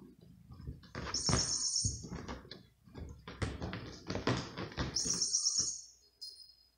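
A cat thrashing and pawing on a carpet while a hand rubs and pokes its fur: irregular rustling and scuffing of fur and claws on the rug. High, chirp-like squeaks sound twice over it, about a second in and about five seconds in.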